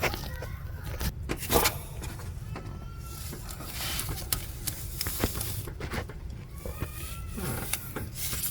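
Scattered clicks and short scrapes of hand tools on metal as the thermostat housing bolts are tightened, over a steady low rumble.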